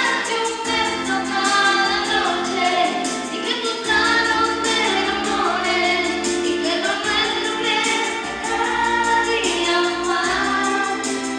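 A woman singing a song into a handheld microphone over backing music with held keyboard-like chords that change every second or two.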